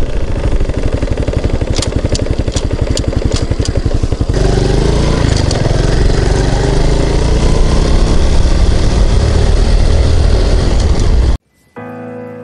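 Honda Super Cub 110's single-cylinder four-stroke engine running with a fast, even beat and a few sharp ticks. About four seconds in it gets louder and rises steadily in pitch as it is revved. It cuts off suddenly near the end, and a music track with held chords begins.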